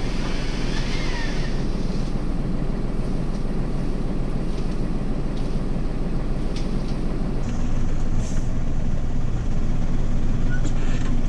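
Diesel engine of an expedition truck running at low speed as it crawls along, a steady low rumble that rises a little about seven and a half seconds in.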